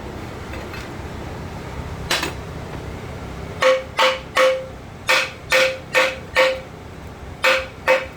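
A hammer striking steel: one blow about two seconds in, then a quick run of about nine more in groups of three or four, each with a short metallic ring. It is the shaft being bumped down to loosen an RTLO truck transmission during a rebuild.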